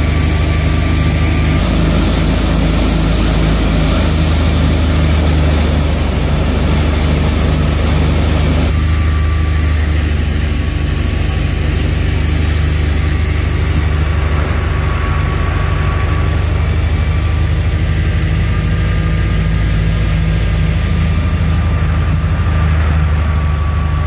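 Wheat thresher running steadily: a continuous low mechanical drone from the machine and the engine driving it, with a dense clatter and rush of the threshing over it.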